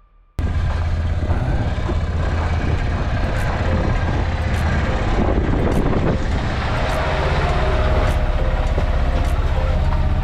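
Engine of an Arctic Cat side-by-side UTV running steadily, starting abruptly about half a second in.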